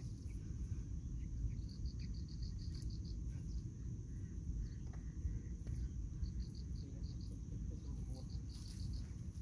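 Insects chirping in short trains of rapid high pulses, several bursts of about a second each, over a steady low rumbling noise.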